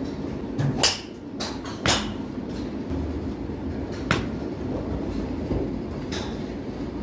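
Golf clubs striking balls: four sharp clicks, about one, two, four and six seconds in, over a steady low rumble of driving-range ambience.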